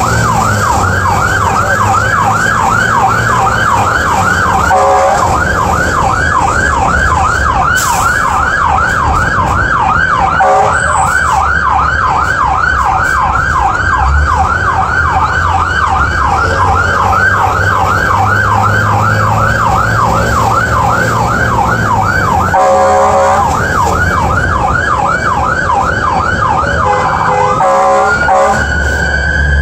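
Fire truck's siren on a fast yelp, a rapid rising sweep repeating about three times a second, broken briefly a few times and switching to a slow rising and falling wail near the end. The truck's engine runs underneath, heard from inside the cab.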